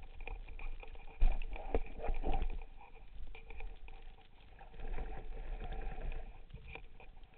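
Muffled underwater knocks and rustling from a freediver's arms and gear moving against the camera housing, over a low underwater rumble. One sharp knock about a second in is the loudest.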